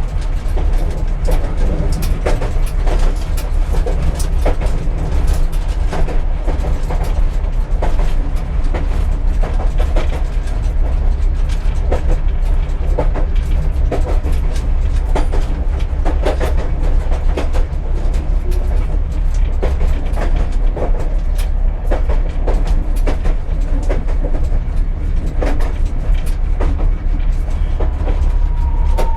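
Tram wheels knocking over rail joints as the tram runs: a heavy steady rumble with frequent irregular sharp knocks. A thin high squeal comes in near the end.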